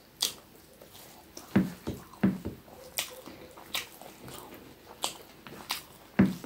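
Close-up eating sounds: wet chewing and lip smacks, with squelches of rice and curry gravy being mixed by hand. Irregular sharp smacks come every half second or so, with a few heavier, duller ones among them.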